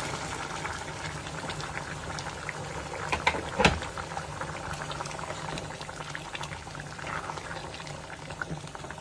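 A pot of food boiling on the stove, a steady bubbling hiss with scattered small pops and a short cluster of louder clicks about three and a half seconds in.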